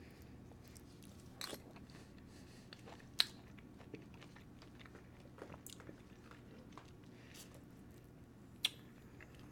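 Faint chewing and mouth sounds, with a few short sharp clicks, the loudest about three seconds in and again near the end.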